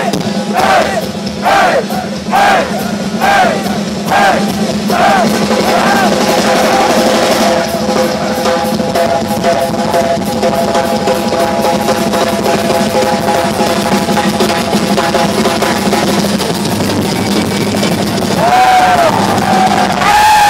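Live heavy metal band playing loud, with the drum kit pounding throughout. For the first few seconds a pitched sound rises and falls about every 0.7 s; then long sustained tones ring out over the drums, with a new held tone sliding in near the end.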